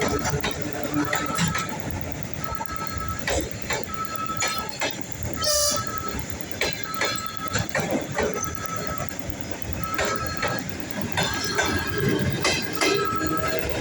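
Suburban electric train at a station, its wheels clattering over rail joints with many sharp clicks. A short high beep repeats roughly once a second, and a brief loud high blast sounds about halfway through.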